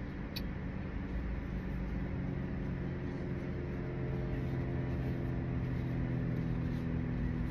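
Car engine idling, heard from inside the cabin: a steady low hum, with an engine drone that swells in and grows a little louder from about two seconds in. A single short click comes just after the start.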